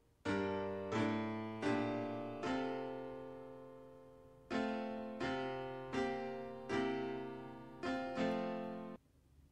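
Slow piano music: about ten chords struck one after another, each left to ring and fade, stopping abruptly about nine seconds in.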